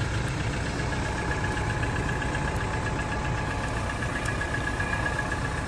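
A vehicle engine idling: a steady low rumble with a faint, even whine above it.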